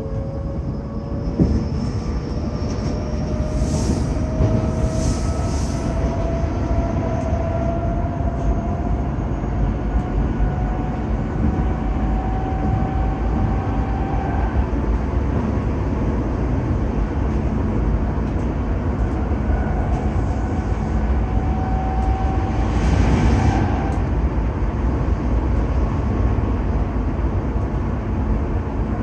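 Tokyo Metro 7000-series subway train running, heard from inside the car: steady rumble of wheels on rail with the traction motor whine rising in pitch as the train speeds up. The whine fades about halfway through, rises again briefly near the end, and a few short high hisses come and go.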